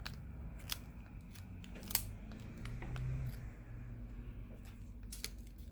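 A few light, sharp clicks of small plastic and metal phone parts being handled and set into a smartphone's frame, spaced a second or more apart.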